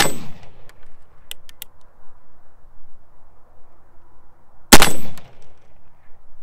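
Pietta reproduction LeMat .44 cap-and-ball revolver firing black-powder round-ball loads. A shot is dying away at the start, a few light clicks follow about a second in, and another sharp shot comes near the end with a short echo after it.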